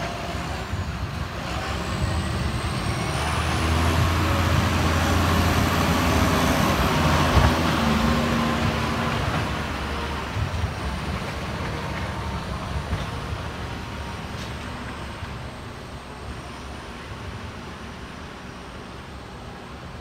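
Diesel engine of a bulk tanker truck running as the truck pulls forward. It grows louder to a peak a few seconds in, with a thin high whine rising over it, then slowly fades.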